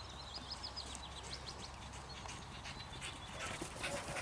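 A small bird sings a quick run of high chirps in the first second or so. About three seconds in, a Rottweiler starts panting quickly and rhythmically, growing louder toward the end.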